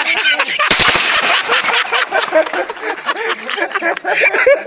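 A sniper's rifle shot cracks loudly just under a second in, fired at a coat held up on a stick as a decoy, with a few fainter cracks close after it. Men's voices and laughter go on around it.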